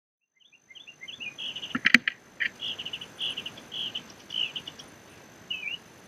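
Small songbirds chirping in quick runs of high notes, with a single slurred call near the end. A couple of sharp knocks about two seconds in are the loudest sounds.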